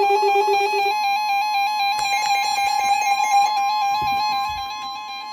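NOAA Weather Radio's 1050 Hz warning alarm tone, a steady high single tone, sounds from about a second in. It signals that a warning message follows. Under it a rapidly warbling electronic tone keeps going until it stops near the end.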